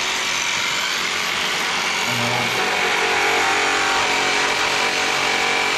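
DeWalt variable-speed rotary polisher running steadily, spinning a cotton airway buffing wheel charged with brown rouge against a bare aluminum wheel: an even rushing hiss with a steady high whine.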